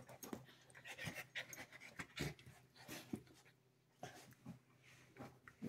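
Husky puppy and an older dog play-wrestling: faint panting with scattered short scuffling clicks, and a brief lull just before four seconds in.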